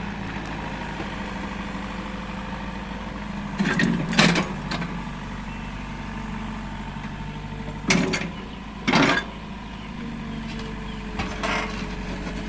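Excavator diesel engine idling steadily, broken by several loud, short noises: one about four seconds in, two more about a second apart past the middle, and a weaker one near the end.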